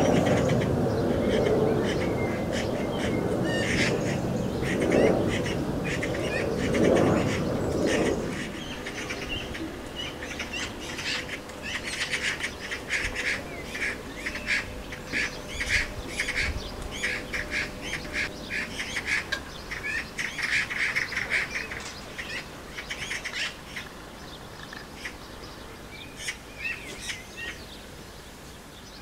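Eurasian magpies chattering: rapid, harsh runs of short call notes, densest in the middle and thinning toward the end. A louder low rumbling noise lies under the first eight seconds or so.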